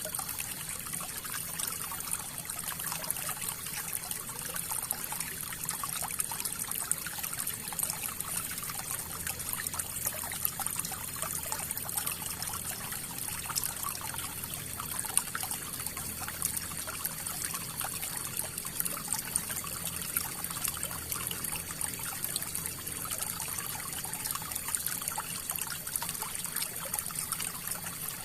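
River water flowing steadily over stones, a continuous trickling and splashing with many small bright crackles and no pauses.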